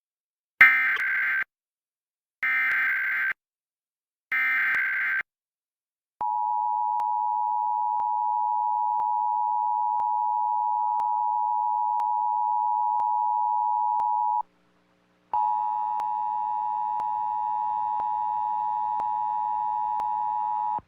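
Emergency Alert System monthly test alert. It opens with three short, screechy bursts of SAME header data, each about a second long. Then the two-tone EAS attention signal holds steady for about eight seconds, breaks off briefly, and sounds again, buzzier, until the end.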